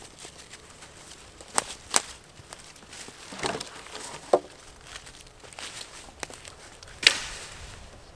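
Footsteps and rustling in dry fallen leaves, broken by a few sharp cracks and knocks of dead sticks being gathered and set down. The loudest knock comes about seven seconds in.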